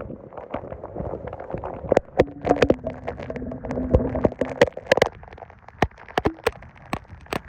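Rain: irregular sharp drops tapping on the camera and the surfaces around it, with a faint low hum for about two seconds midway.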